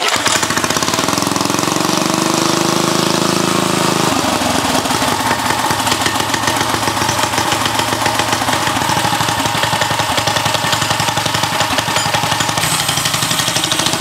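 A mini bike's small single-cylinder engine starts and runs. Its speed climbs over the first few seconds, then it holds at a steady fast idle while its carburettor is being adjusted.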